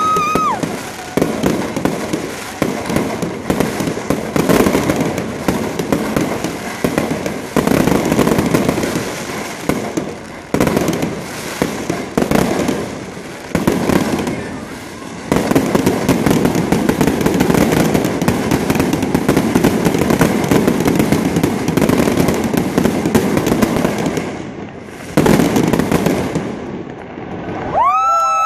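Fireworks display: aerial shells bursting and crackling continuously, with dense popping and sharper bangs throughout, easing briefly before a final loud burst. Near the end a rising cry from the crowd.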